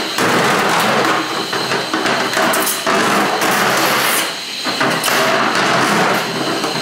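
Milwaukee M18 drum drain snake running, its 7/8-inch cable spinning and clattering as it is fed down a clogged floor drain. The noise dips briefly about four seconds in.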